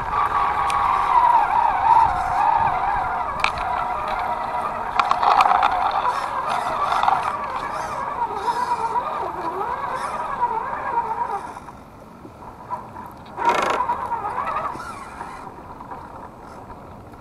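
RC crawler's electric motor and gear drivetrain whining under load, the pitch wavering up and down with the throttle, with a few sharp clicks. The whine drops away about twelve seconds in, comes back in a short louder burst, then fades.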